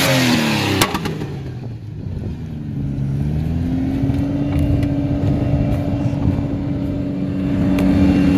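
Jeep Wrangler TJ engine driving in sand: a sharp knock about a second in, the revs drop away, then climb again and hold steady.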